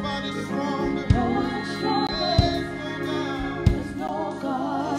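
Live gospel praise music: voices singing a slow praise song over a church band, with three evenly spaced deep drum hits.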